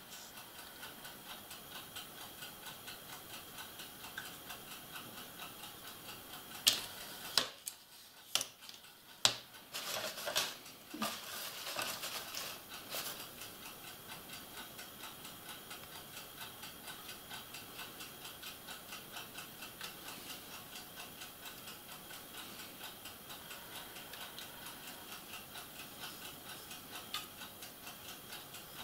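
Quiet model-painting handling sounds: a paintbrush knocking and scraping in a small plastic cup of grey paint, with a few sharp clicks and a short stretch of scraping near the middle. Under it, a soft, fast, even ticking.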